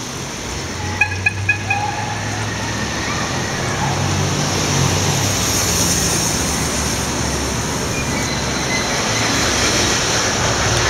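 Steady street traffic and low wind rumble heard while moving with cyclists among cars, with four quick high-pitched pings close together about a second in.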